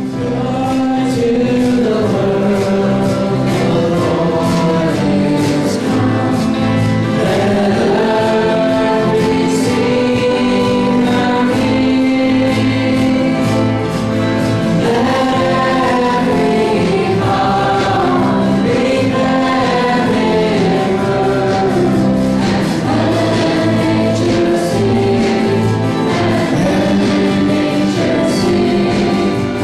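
Choir singing a gospel-style worship song with instrumental accompaniment.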